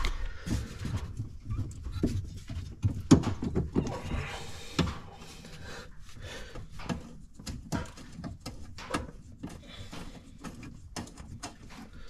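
A 19 mm wrench working the shifter cable's retaining nut by hand in a cramped space: irregular metal clicks, taps and scrapes with handling rustle, the loudest knock about three seconds in.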